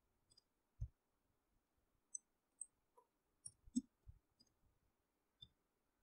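Faint, irregular clicks of a computer mouse and keyboard keys, about ten in all, as text is edited on a computer.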